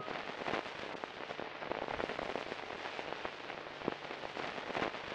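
Steady crackling: dense, irregular small clicks over a hiss, with a few sharper clicks near the end.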